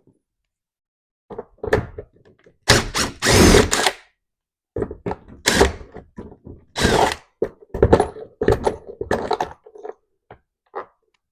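Impact driver run in several short bursts, backing out the door trim panel screws, with knocks of parts being handled between the bursts.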